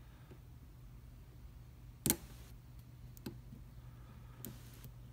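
A few sharp metallic clicks from a Commando padlock being handled, the loudest about two seconds in, over a low steady hum.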